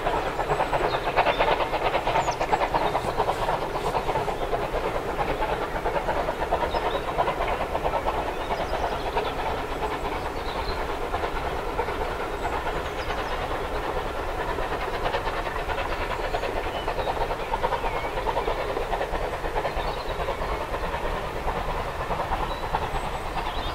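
Steam locomotive hauling a passenger train, its exhaust chuffing in a steady, rapid beat.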